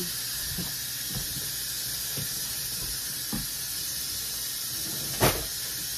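Steady hiss of food cooking on the stove, with a few light clinks of a spoon on cookware and one sharp clack about five seconds in.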